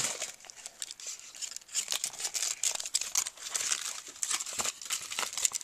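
Paper and cardstock pages of a handmade scrapbook album rustling and crinkling as they are handled and turned: a run of quick, irregular crackles.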